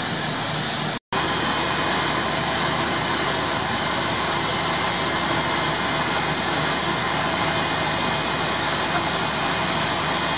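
Steady drone of idling fire apparatus engines, with a brief dropout about a second in.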